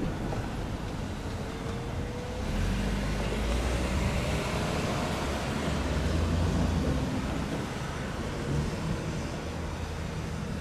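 Road traffic: cars driving past across the crossing, with tyre and engine noise. One car passes close from about three to seven seconds in, then the noise settles back to a steady hum.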